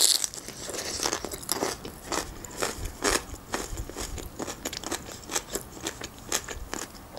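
Chewing and eating rotisserie chicken: a string of short, irregular mouth clicks and bites.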